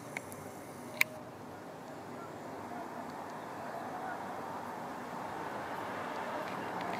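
Steady outdoor background noise that slowly swells, with one sharp click about a second in.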